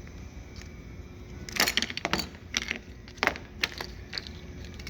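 Sharp metallic clicks and clinks in several quick clusters, as the clamps of a belt-welding fixture are released and the freshly welded belt is taken out. A low steady hum runs underneath.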